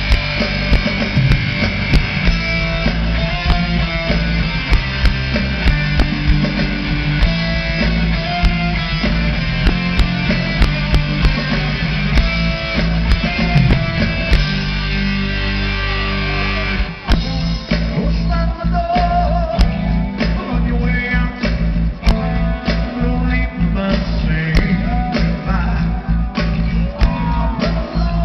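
Rock band playing live through a stage PA, heard from the crowd: electric guitars and held chords at first, then about two-thirds of the way in the full drum kit comes in with a steady beat.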